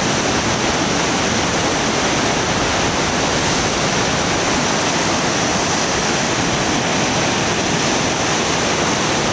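Fast mountain river rushing through rapids: a steady, unbroken rush of water.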